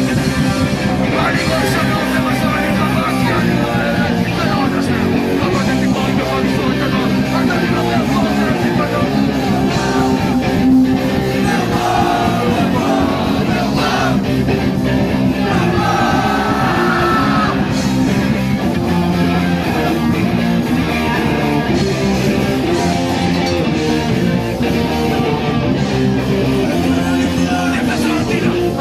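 Loud live rock band playing: electric guitar and drums, with shouted vocals over them.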